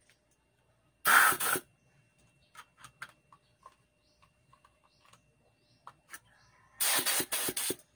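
Two short hissing bursts of air rushing through a small hose fitting. The first comes about a second in and lasts half a second; the second comes near the end and lasts about a second. Light clicks of small parts being handled fall in between.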